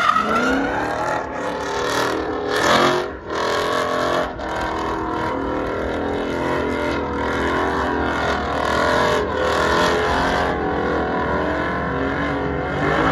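Roush Ford Mustang drift car's engine revving hard, its pitch rising and falling as the driver works the throttle, with the rear tyres spinning and screeching in a smoky drift. The driver lifts briefly twice, about three and four seconds in.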